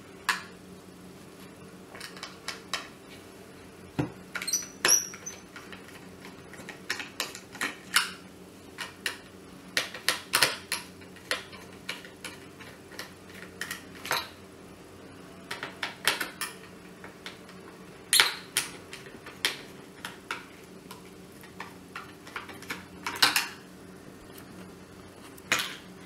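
Screwdriver backing the top-cover screws out of an Orpat OEI-177 dry iron's plastic housing: irregular small clicks, taps and scrapes of metal on plastic as the screws turn and the parts are handled.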